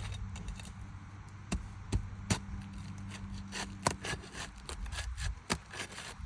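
Sharp knocks and taps of a tool working roofing nails loose from under asphalt shingles, five louder strikes spread irregularly among smaller taps, over a steady low hum.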